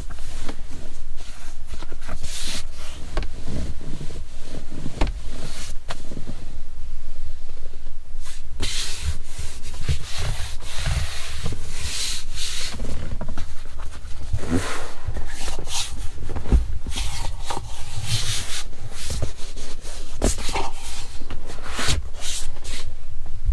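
Steady low rumble from the Ford Maverick driving, heard inside the cabin, with frequent irregular rubbing, rustling and clicking noises close to the microphone.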